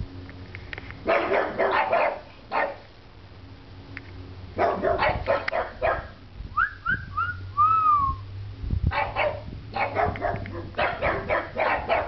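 Pugs barking in bursts of quick, repeated barks, with pauses of a second or two between the bursts. Partway through, between bursts, comes a short run of high whistle-like notes, four brief falling ones and then a longer one.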